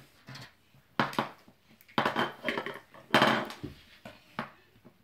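Small plastic toys and play-dough cutters clattering and knocking on a wooden table: a run of sharp knocks, the loudest a little past the middle.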